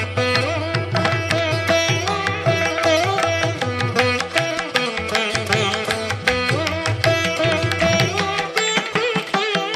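Background instrumental music in an Indian classical style: a fast plucked-string melody over a steady low drone.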